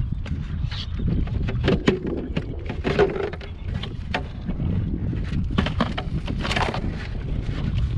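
Wind rumbling on the microphone of an open kayak, with scattered short knocks and clicks throughout.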